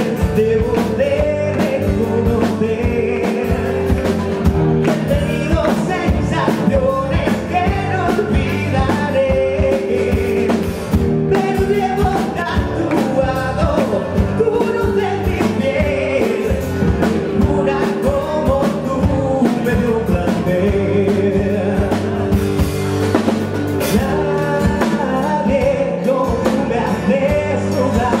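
Rock band playing live: a man sings lead into a microphone over guitars and drums, loud and continuous.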